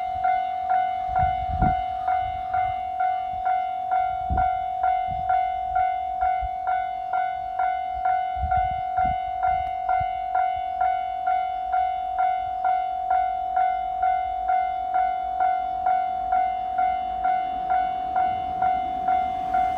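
Japanese railway level crossing warning bell clanging steadily at about two strikes a second, each strike a ringing tone. A few low thumps come in the first half, and in the last couple of seconds the rumble of an approaching 701 series electric train rises under the bell.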